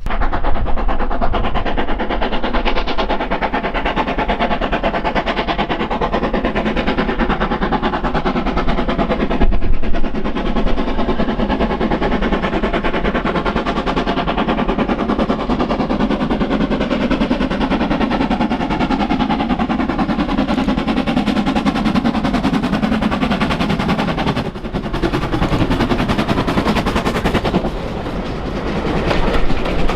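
Steam locomotive working a train past, its exhaust beats coming fast and close together over the running of the train, with a brief dip in level about three quarters of the way through.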